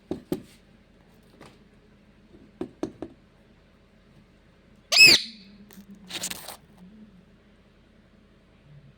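Pet parrot giving one short, loud, high-pitched screech about halfway through, followed a second later by a brief harsh noise; a few soft clicks come earlier.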